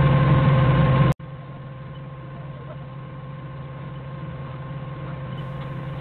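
Forklift engine idling steadily, with a constant low hum and a faint steady whine. A little over a second in, the sound drops abruptly to a quieter level and carries on unchanged.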